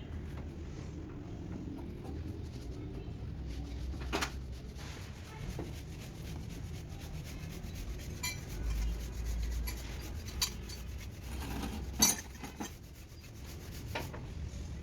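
Rubbing and scraping with scattered sharp metal clinks and knocks, the loudest about 12 seconds in, over a steady low rumble.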